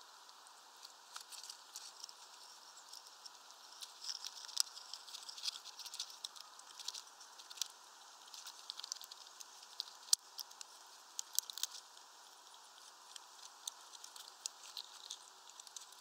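Squirrel feeding at a seed tray close to the microphone: a patter of irregular small clicks and crackles, busiest in the middle and thinning out near the end.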